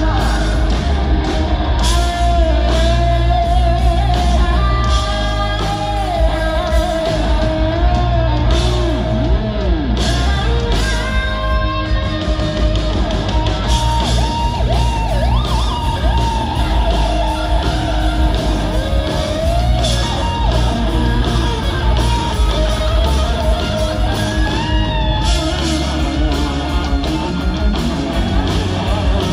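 Loud live rock band in a large hall: distorted electric guitar playing lead lines with bends and slides over drums and bass, with some singing.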